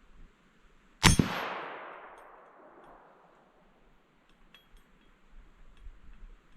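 A single loud, sharp metallic-sounding impact about a second in, ringing out and fading over about two seconds, followed by a few faint ticks.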